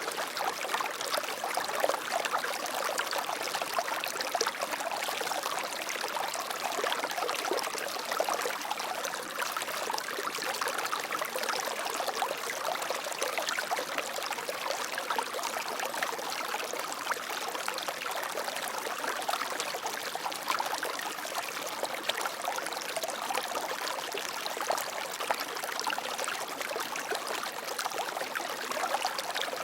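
Water flowing and trickling in a steady stream, an even splashing babble without pauses.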